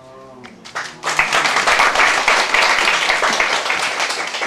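A brief voiced sound, then an audience breaks into applause about a second in, a dense, steady clapping that eases off near the end.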